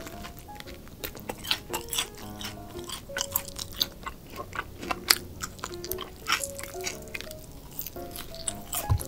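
Close-miked chewing and crunching of honey-glazed fried chicken, with wet lip smacks and sucking on the bone and fingers: many short sharp crackles.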